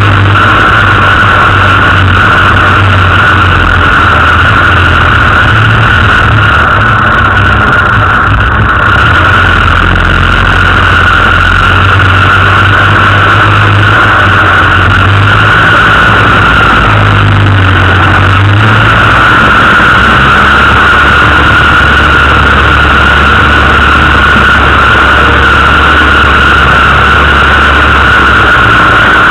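Land Rover 4x4 engine running steadily, with a steady high whine over it. The engine note drops lower about two-thirds of the way through.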